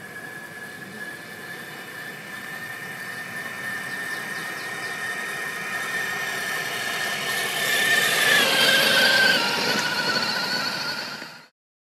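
Axial SCX6 1/6-scale RC crawler's electric motor and geartrain whining steadily, growing louder as it drives up. The whine dips slightly in pitch as the truck passes close by, about two-thirds of the way through, then cuts off suddenly.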